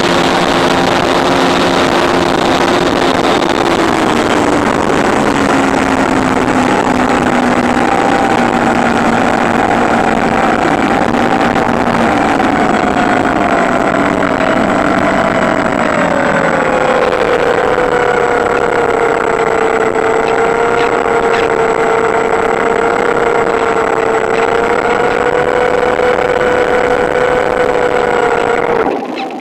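Electric motor and propeller of a Cularis RC motor glider running in flight: a steady whine over rushing air, its pitch stepping down twice as the throttle is eased. Near the end the motor is throttled right back and the sound drops away suddenly.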